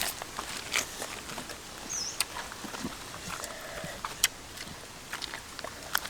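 Scattered small clicks and taps of snail shells being handled and cracked while eating, with one short high chirp that falls in pitch about two seconds in.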